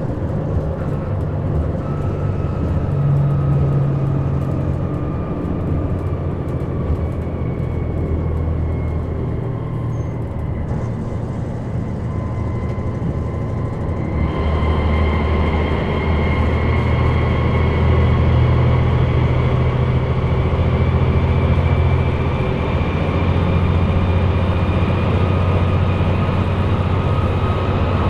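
KiHa 187 series diesel railcar's engine and driveline heard inside the passenger cabin: a deep engine drone under a thin, high-pitched whine, apparently from the transmission gears. Over the first ten seconds the whine sinks slowly in pitch. About halfway through, the engine grows louder and a new whine starts, climbing slowly in pitch.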